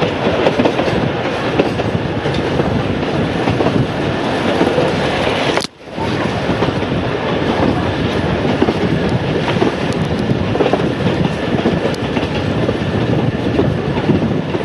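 Narrow-gauge heritage passenger train running along the track, heard on board beside the carriage: a steady rumble of wheels on rail. The sound drops out for a split second about six seconds in.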